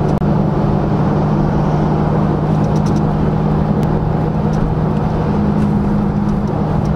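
Dodge Charger Scat Pack's 392 (6.4-litre) HEMI V8 cruising in fifth gear at a constant speed: a steady, even low exhaust drone with road noise, heard from inside the car.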